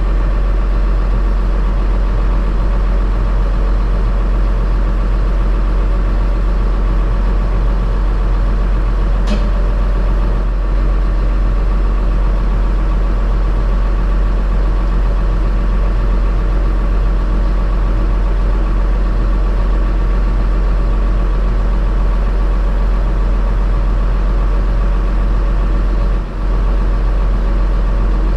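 Heavy diesel engine running at a steady speed, with one sharp click about nine seconds in.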